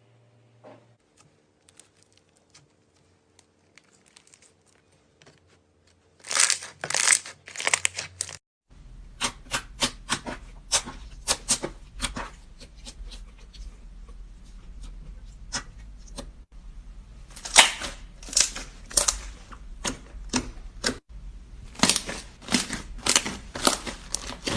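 Slime being squeezed and poked by hand, giving rapid clusters of crackling clicks and pops. It is faint at first and louder from about six seconds in.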